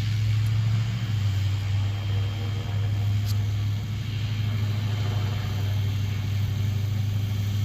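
FlyWing FW450 V3 electric RC helicopter in flight, its rotor and motor giving a steady low hum with a faint high whine over it.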